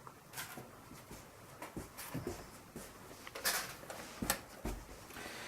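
Handling noise from drone kit parts being moved about: a few light knocks and rustles at irregular intervals.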